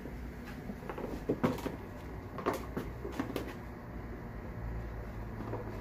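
Light, scattered knocks and clatter, as of objects being handled and shifted among boxes, with a low rumble near the end.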